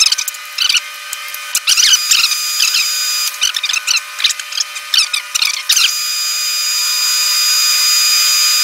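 A 1/8 inch twist drill in a machine spindle cutting a hole in a metal part for a roll pin. It gives uneven, scratchy squeals for the first several seconds, then settles into a steady high cutting whine near the end.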